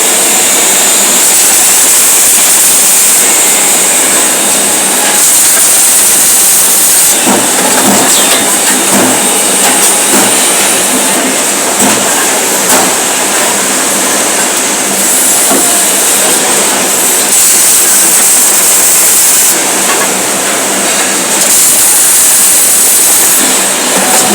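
Welding work: a loud, steady hissing noise with a strong high edge, changing in character every few seconds.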